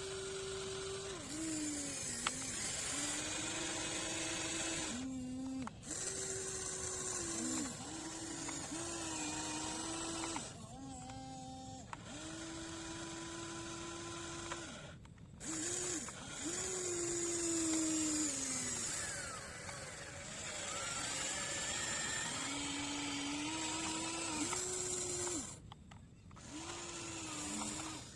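Small electric motors of a radio-controlled excavator whining as it works, running in spells of a few seconds broken by brief stops. The pitch dips and recovers as the motors take load.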